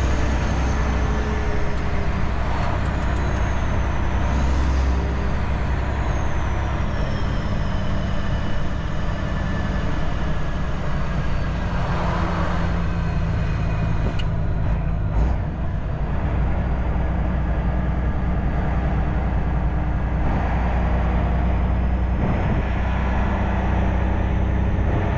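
Semi truck's diesel engine running steadily under way, with road and cab noise, heard from inside the cab.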